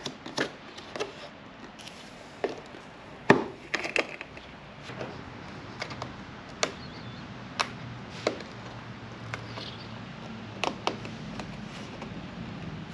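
Plastic trim pieces being pressed and snapped into place on a motorcycle's body panels: about a dozen sharp, irregularly spaced clicks and taps, the loudest about three seconds in.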